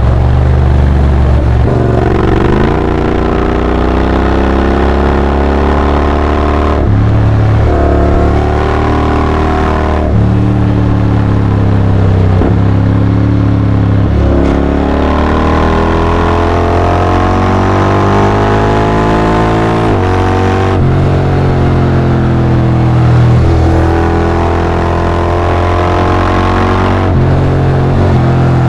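Honda X-ADV 750's parallel-twin engine through a full Akrapovic exhaust, pulling hard under throttle. Its pitch climbs through each gear and is broken every few seconds by a quick automatic gear change.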